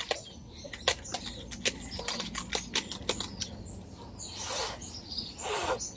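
Irregular sharp clicks and taps of a plastic handheld bubble fan being handled and worked, with two short hissy bursts in the last two seconds.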